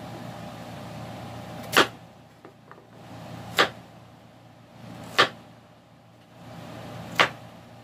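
Kitchen knife cutting through a raw carrot onto a wooden cutting board: four sharp knocks about two seconds apart as the blade strikes the board. A steady low hum runs underneath.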